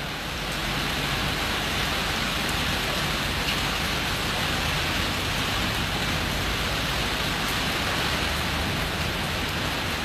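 Rain falling steadily: an even hiss of rain on surfaces that keeps the same level throughout.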